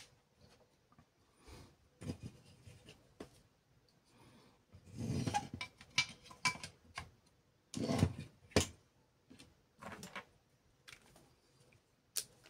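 Hands handling a laser printer's fuser assembly on a wooden table: scattered clicks and knocks of plastic and metal parts. There is a longer stretch of rubbing and clatter about five seconds in and a louder cluster of knocks near eight seconds.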